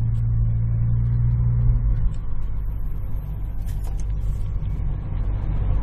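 Car engine and road rumble heard from inside the cabin while driving. A steady low engine hum holds for about the first two seconds, then gives way to a rougher rumble.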